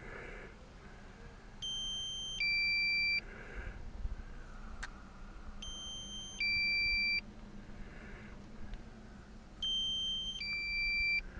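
DJI drone controller sounding its low-battery warning: a two-tone beep, a higher note followed by a lower one, repeating about every four seconds.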